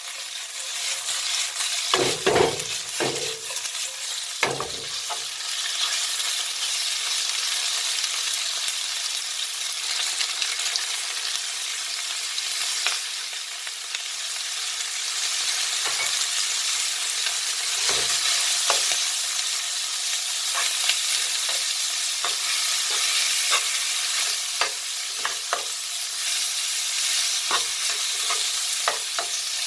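Food sizzling steadily in a hot frying pan while it is stirred, the utensil clicking and knocking against the pan, loudest a few seconds in.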